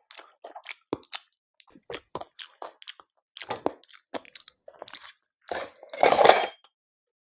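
Close-miked chewing and biting of a chicken curry meal, a run of short smacks and crunches, with one louder, longer crunch about six seconds in.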